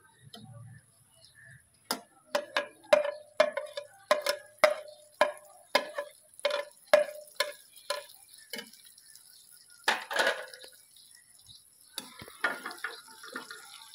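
Metal spoon stirring in a steel karahi, clinking against the pan about twice a second with a short ring. About ten seconds in there is a louder scraping clatter, and the clinking picks up again near the end.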